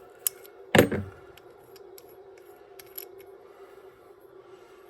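Small metal carburetor parts and a wrench clinking and tapping as a part is taken off the carburetor: a sharp click, a louder knock about a second in, then scattered light ticks. A steady low hum runs underneath.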